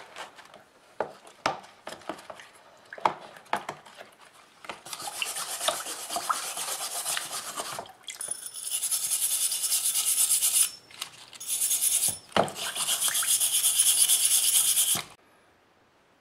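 Rusty iron blade of a shipwright's caulking iron, wet from the tub, being scrubbed with a small wooden-backed scrubber. First come scattered clicks and knocks of handling. From about five seconds in there is fast back-and-forth rasping, which pauses briefly a few times and stops near the end.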